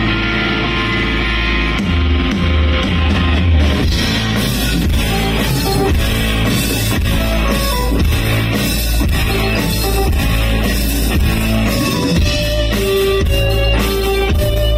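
Live rock band playing loudly, electric guitars, bass guitar and drum kit, heard from among the audience; cymbals come in strongly about four seconds in.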